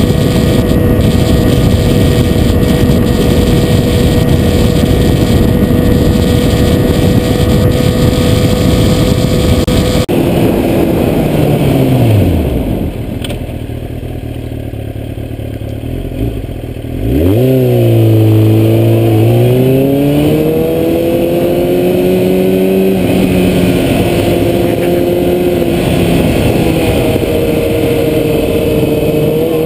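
Sport motorcycle heard from the rider's seat. It first cruises steadily under heavy wind noise. Then the engine winds down to a low, quiet run for a few seconds before revving up about halfway through and pulling away, its pitch stepping through gear changes.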